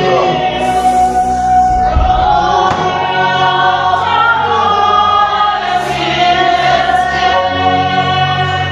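Gospel choir singing with musical accompaniment, holding long sustained notes over a steady bass.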